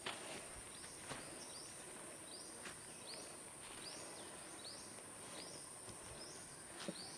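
Faint outdoor ambience: short falling chirps repeated about twice a second, likely a bird calling, over a steady high-pitched insect drone.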